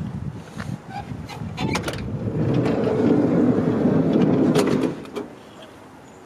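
Side door of a Ford E-150 van being opened: a couple of sharp latch clicks, then a loud rumbling scrape lasting about two and a half seconds that ends with a sharp clack.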